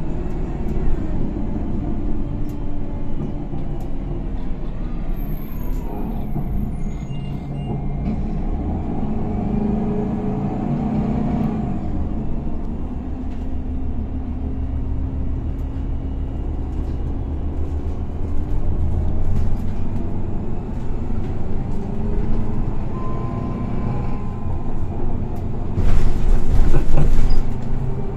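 Higer KLQ6129GQ2 city bus's diesel engine and Voith automatic gearbox heard from inside the passenger cabin while driving, the engine note rising and falling as the bus pulls away and shifts. A loud hiss near the end, typical of the air brakes.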